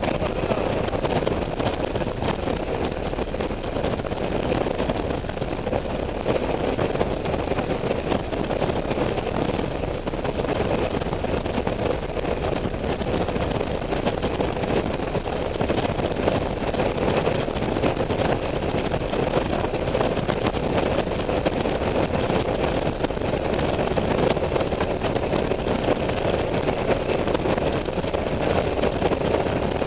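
Honda Silver Wing maxi-scooter riding at steady cruising speed: an even engine drone blended with wind and road noise.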